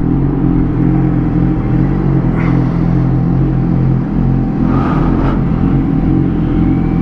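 Car engine running steadily while driving slowly in town: an even, low engine hum with road rumble beneath it.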